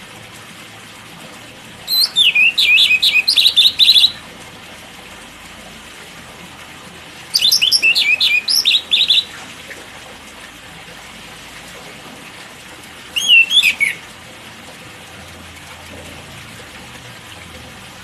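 White-rumped shama (murai batu) singing in three loud bursts of rapid, sliding high notes, the first about two seconds in, the second near the middle and a shorter one about two-thirds through, over a steady background hiss.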